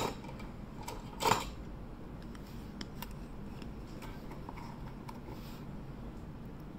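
Two sharp knocks, one at the start and another about a second later, then a few faint ticks over a steady background hiss: small objects and tools being handled on a workbench.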